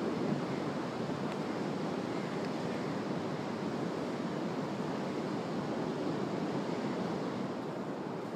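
Ocean surf breaking on a sandy beach: a steady rushing wash of waves.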